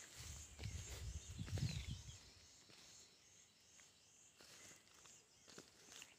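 Quiet outdoor field ambience: insects buzzing high and steady, with a few short bird chirps, and a low rumble during the first two seconds.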